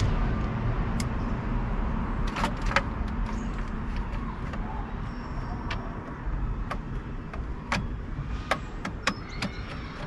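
Scattered light clicks and taps of the plastic steering-column cowling being lined up and screwed into place, over a steady low rumble.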